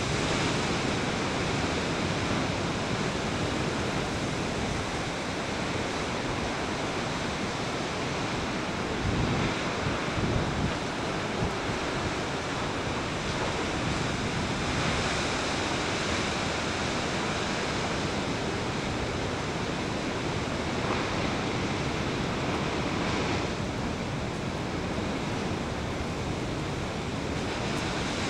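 Rough ocean surf breaking against offshore sea stacks: a steady wash of crashing waves and spray. Wind buffets the microphone now and then, most strongly about ten seconds in.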